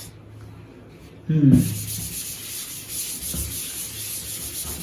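Steady scratchy rubbing on the surface of a double-sided writing board, starting about a second in. It is the sound of writing on or wiping the board while its other side is tried out.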